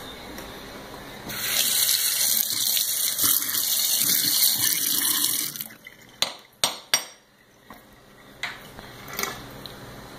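Kitchen tap running into a stainless-steel sink for about four seconds, then shut off, followed by three sharp knocks in quick succession.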